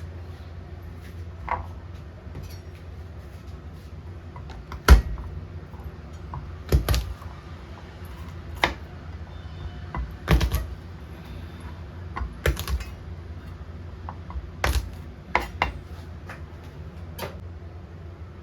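Kitchen dishes and utensils being handled: about ten sharp, irregular knocks and clinks over a steady low hum, the loudest about five seconds in.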